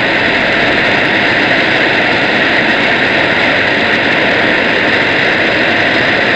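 Steady, loud hiss of shortwave radio noise filling the audio, with no programme audible through it; it cuts off abruptly near the end as the broadcast speech returns.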